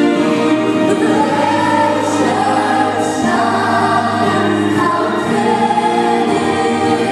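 A choir singing, with notes held in full chords.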